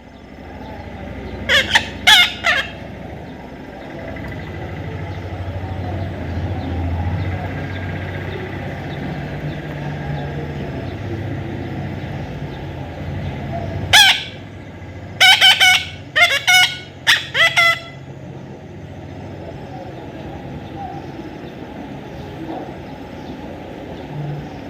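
Parrot giving short, loud, harsh calls: two about two seconds in, then one more about halfway, followed quickly by a run of four or five. A steady low rumble runs underneath.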